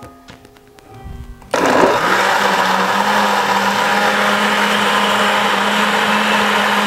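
Countertop blender switched on about a second and a half in, its motor spinning up quickly and then running steadily at full speed through a jar of ice, cucumber pieces and syrup.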